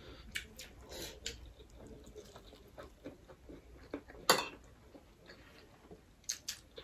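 Close-up mukbang eating sounds: chewing and mouth clicks while eating rice and pork with spoons, with light scrapes and taps of spoons on plates and one sharper click about four seconds in.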